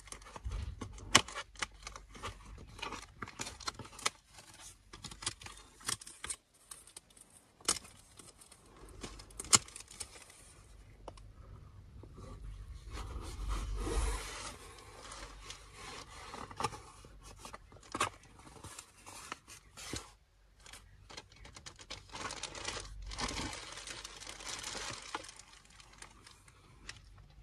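Packing tape being peeled and torn off a cardboard box, with sharp clicks and scrapes of the cardboard as the flaps are pulled open. Near the end, the plastic wrapping of the item inside crinkles as it is handled.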